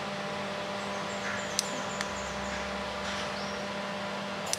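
Autogate motors running with a steady hum as both gates swing open after the remote's button is pressed, with a couple of faint clicks midway.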